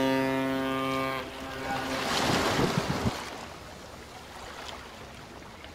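A ship's horn sounds one steady low blast that cuts off about a second in. It is followed by a rushing whoosh about two seconds in, then quieter sea and wind noise.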